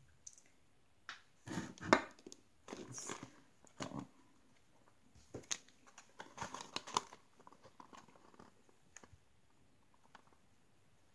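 Toy packaging crinkling and rustling in irregular bursts as it is handled, with a few sharp clicks; it dies away about eight seconds in.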